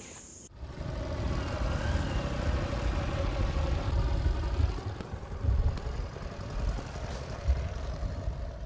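Small long-tail outboard motor on a wooden river canoe, running steadily with a low rumble. It starts about half a second in.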